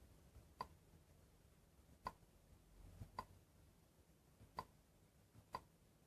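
Five faint, short clicks spaced roughly a second apart as a Nexus 7 tablet is tapped through its setup screens, over near silence.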